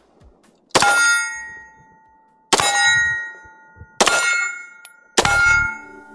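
Four shots from a Beretta 92FS Inox 9mm pistol, spaced one to two seconds apart. Each one ends in a ringing metallic tone that dies away over about a second.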